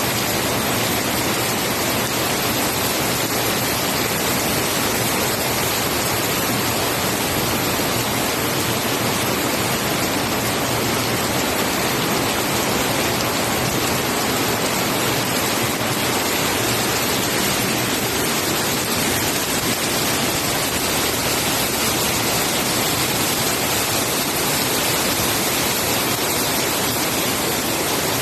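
Floodwater rushing past in a steady, unbroken torrent.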